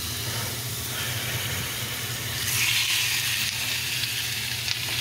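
Seasoned chicken pieces sizzling in hot olive oil in a large cast-iron skillet as they are laid in. The sizzle grows louder about two and a half seconds in.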